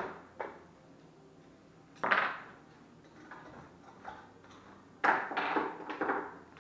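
Metallic clanks of aluminium extrusions and linear rails being handled and knocked on the bench. One sharp ringing clank about two seconds in, then a run of several knocks about five seconds in.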